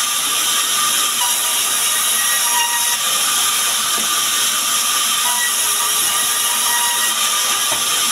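Sawmill saw running and ripping sengon timber into boards: a steady, loud, high hissing cut with short whining tones that come and go as the wood is fed through.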